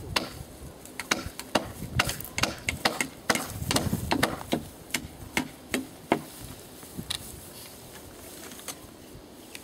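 Hammer blows driving nails into wooden fence poles: a run of sharp knocks, about two or three a second, stopping about six seconds in, with one more a second later.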